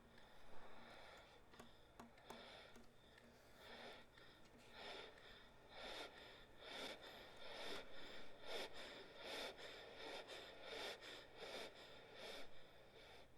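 Soft, breathy puffs of air like slow breathing, from a viola and baritone saxophone duo playing extended techniques. The puffs come about once or twice a second and grow stronger from about five seconds in.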